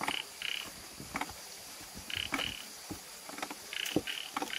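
A frog calling in short, high double notes, a pair every second or two, with scattered soft knocks and scuffs from bare hands and feet on rock.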